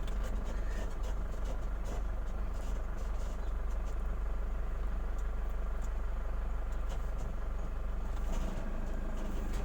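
Steady low rumble of a car's engine and road noise while driving, with no sudden events.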